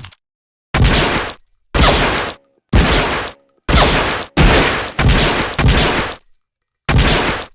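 Colt M1911A1 .45 ACP pistol firing a string of about eight shots. The first few come about a second apart, then they come faster, each shot with a short ringing tail.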